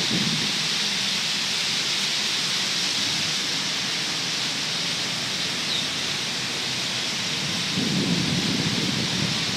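Wind on a phone microphone outdoors: a steady high hiss, with rumbling gusts buffeting the microphone near the start and again about eight seconds in.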